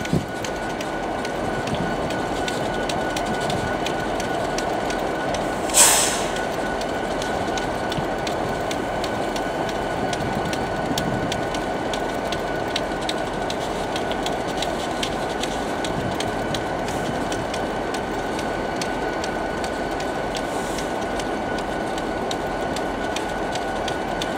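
Diesel locomotives running steadily: a Union Pacific SD70AH with Canadian Pacific GE units. A thin steady high whine runs over the engine noise, and a brief loud hiss comes about six seconds in.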